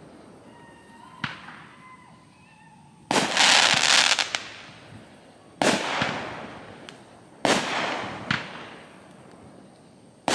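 Backyard aerial fireworks going off: a sharp bang, about three seconds in, trails off in crackling over about a second. Two more loud bangs follow at intervals of about two seconds, with smaller cracks in between, and another bang comes right at the end.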